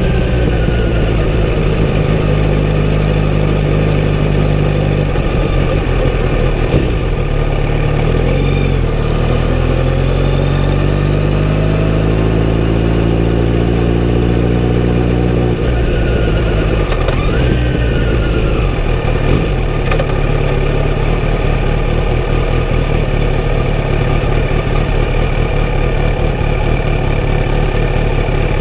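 Kawasaki Z900RS's 948 cc inline-four engine running at low speed: the revs climb gradually for about ten seconds, fall back abruptly about halfway through, then hold steady at low revs near idle.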